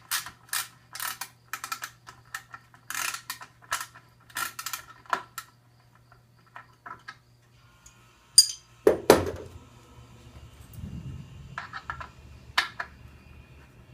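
A screw being backed out by hand, with a rapid series of ratchet-like clicks, about two a second, for the first five seconds. A loud knock comes about nine seconds in, followed by a few more clicks.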